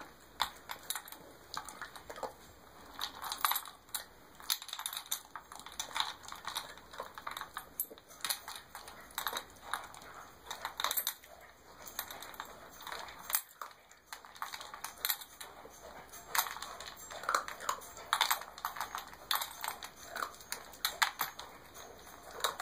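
A dog making a run of irregular sharp clicks and taps, several a second, in uneven clusters.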